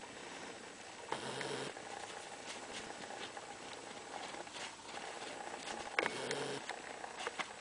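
Leonberger puppies scuffling and pattering about, with small scattered clicks and two short low sounds, one about a second in and one about six seconds in.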